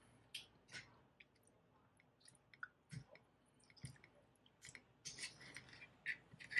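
Faint, scattered clicks and scrapes of a metal fork against an opened sardine tin, with soft wet sounds as oily sardines are prised out. Two dull knocks come about three and four seconds in, and the clicking gets busier near the end.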